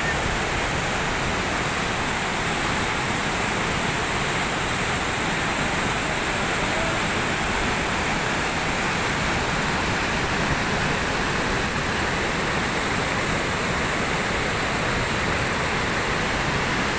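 Steady rush of a large waterfall and the white-water rapids below it, water churning over boulders, unbroken and even in loudness throughout.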